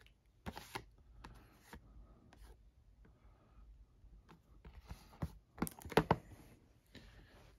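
Boxed collectible lightsaber display cases being handled: scattered light clicks, taps and scrapes of the box and its plastic tray, with the loudest cluster about six seconds in as one box is put aside and the next picked up.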